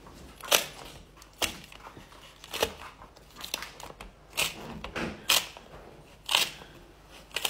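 Crisp clicks and crunches from a fidget toy being squeezed or worked by hand, about one sharp crunch a second with faint crackling in between.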